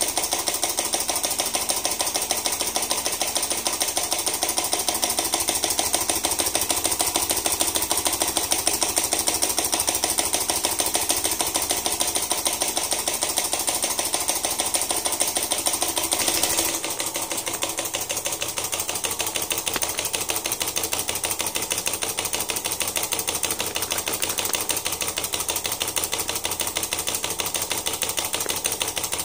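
Small DC motor running steadily, driving a crank-and-syringe linkage that pushes a bar magnet back and forth inside a copper coil, with a fast continuous clicking rattle from the mechanism. The sound drops a little in level about two-thirds of the way through.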